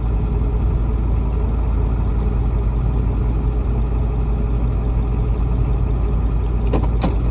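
Steady low rumble of a car's engine and road noise heard from inside the cabin while driving.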